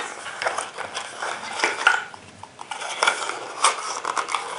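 Small cardboard knife box being opened by hand: irregular scraping, rustling and small clicks and knocks as a Buck Cadet folding pocketknife is slid out.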